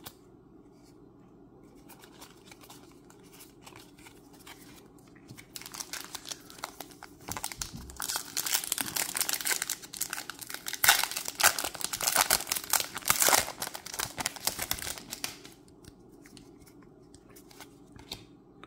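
Foil wrapper of a Magic: The Gathering play booster pack being torn open and crinkled. The crackling starts about five seconds in, is loudest in the middle stretch, and stops a few seconds before the end.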